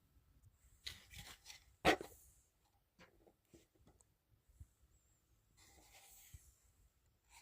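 Handling noises: scraping and rustling of small objects, with one sharp knock about two seconds in.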